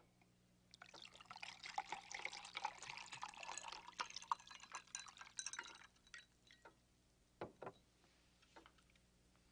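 Whisky poured from a bottle over ice cubes into a tall glass, a faint, steady pour lasting about five seconds. After it stops, a few scattered faint clicks and ticks follow.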